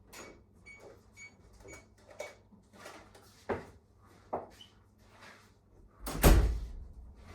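Faint scattered taps and clicks, then one loud, low thump about six seconds in.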